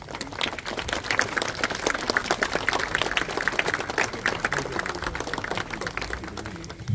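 A large crowd applauding: dense clapping that starts at once and dies away near the end.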